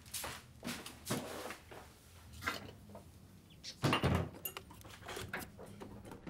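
Kitchen clatter: a series of short knocks and clunks like cupboard doors and kitchen items being handled, the loudest about four seconds in.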